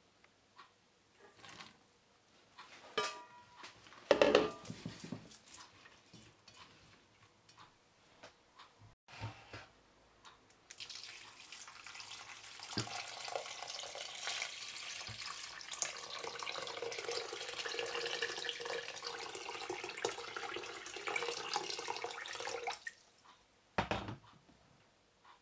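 Soaked raisins tipped from a steel bowl into a cast-iron pot, with a few clatters and knocks about four seconds in, the loudest moment. Then water pours steadily onto the dried fruit in the pot for about twelve seconds and stops.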